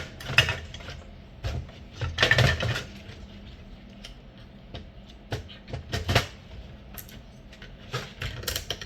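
Hard plastic parts of a Timex alarm clock being handled and pulled apart: scattered clicks and knocks, with a denser clatter about two seconds in and another about six seconds in.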